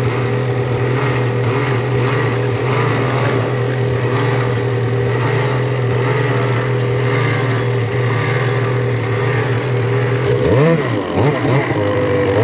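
Snowmobile engines running steadily at a constant pitch, then revved in a few quick throttle blips near the end, the pitch jumping up and dropping back each time.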